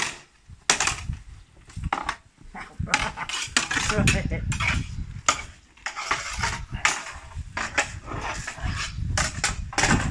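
A billhook and a sword clashing against each other and striking a shield in a sparring bout: an irregular run of sharp metallic clanks and knocks, with clattering between them.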